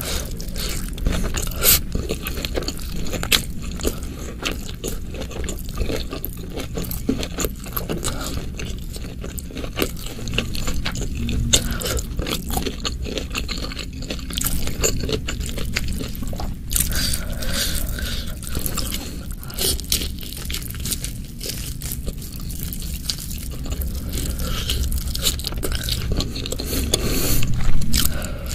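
Close-miked chewing and wet, sticky mouth sounds of spicy stir-fried beef (oseng mercon) and rice, with occasional crunches, and fingers scraping food together on a banana leaf.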